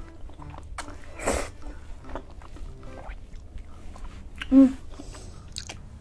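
A person slurping and chewing instant noodles in a creamy sauce, with a noisy slurp about a second in and wet chewing after it. Near the end comes a short, loud vocal sound from the eater.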